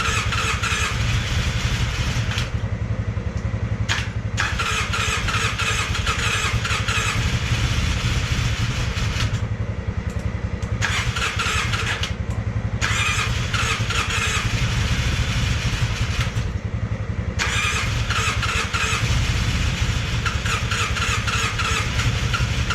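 Polaris Sportsman 600's twin-cylinder engine being cranked on the starter and sputtering, trying to catch without running. A fast, uneven chatter drops out briefly four times. The engine has almost no compression, which is why it won't fire up.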